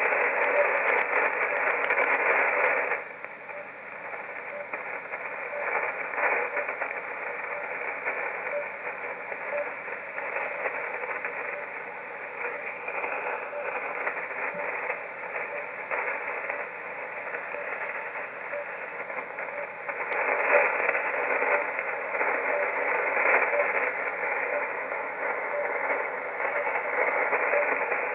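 Shortwave receiver hiss and static, tuned to the RWM time-signal station on 9996 kHz and heard through the radio's narrow audio passband. The noise drops in level about three seconds in and comes back up louder about twenty seconds in.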